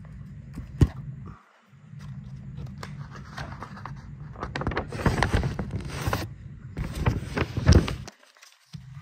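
Close rustling and scraping handling noise with scattered clicks, loudest in the second half and stopping abruptly about eight seconds in, over a steady low hum. A sharp click comes about a second in.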